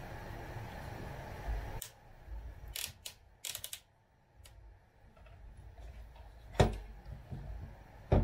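Handling noises from a wheelchair electric drive unit under repair: a steady hiss that cuts off suddenly about two seconds in, a few sharp clicks, then two knocks, the second one near the end.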